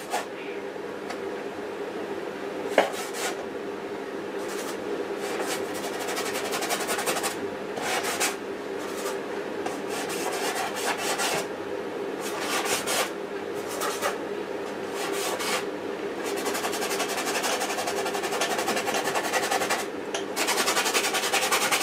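Paintbrush scrubbing paint onto a stretched canvas in short back-and-forth strokes: a scratchy rasping that comes in runs with brief pauses between them.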